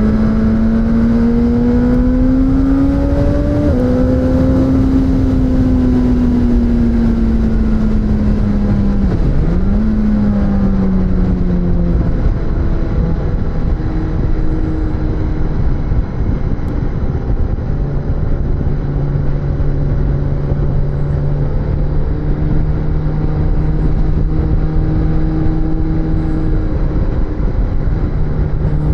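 Suzuki GSX-S1000's inline-four engine heard from onboard. The revs climb and then drop sharply with a gear change about four seconds in. The note then falls away as the bike slows, with a brief dip near ten seconds, and settles into steady cruising revs for the second half, over a constant rush of wind and road noise.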